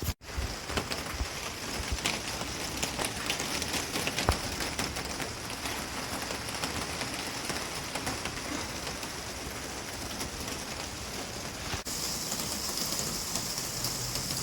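Steady heavy rain falling on a covered gazebo shelter, with many separate drops striking close by.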